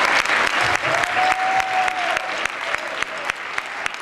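Audience applauding, loudest at first and gradually thinning out. About a second in, a single high held whistle-like tone runs through it for over a second.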